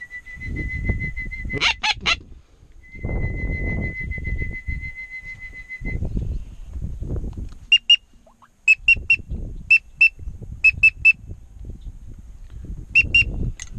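Duck call whistle blown: a long steady whistle tone, a short sharp note, a second long tone, then short whistle toots in quick pairs and triples. Wind buffets the microphone throughout.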